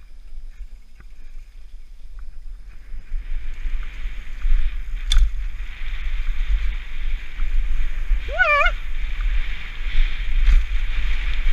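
Wind buffeting a helmet-mounted action camera's microphone and mountain bike tyres rolling over a dirt trail on a descent, with a steady hiss that builds about three seconds in as speed picks up. A brief wavering high-pitched call cuts through near the end.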